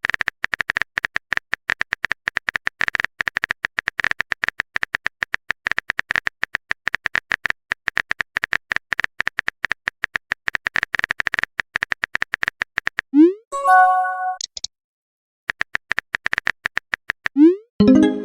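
Rapid phone-keyboard typing clicks, a dense stream of short taps. About 13 seconds in, a short rising swoop and a brief chime of several tones mark a message being sent. The taps resume for a moment, and another swoop comes near the end.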